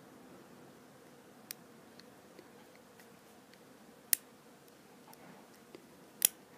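Scattered small metallic clicks of a pick and tension wrench working the pins inside a Master Lock No.3 lockout-tagout padlock, with two sharper clicks about four and six seconds in. The lock is not opening.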